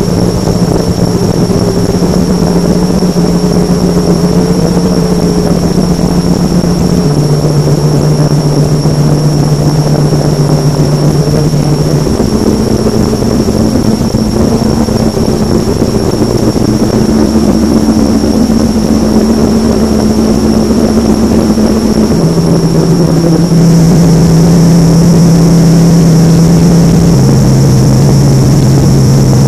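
Mock Emergency Alert System alarm: a loud, distorted low drone of held tones over a heavy rumble, stepping to a new pitch four times, with a faint steady high whine throughout. It gets slightly louder about two-thirds of the way through.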